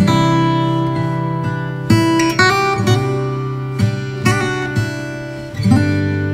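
Background music: strummed acoustic guitar chords with a steady rhythm.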